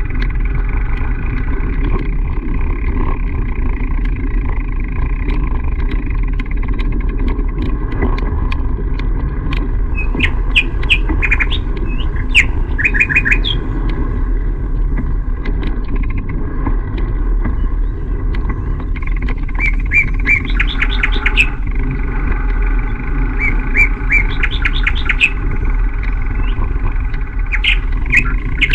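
Birds chirping in several short, rapid runs of high notes over a loud, steady low rumble.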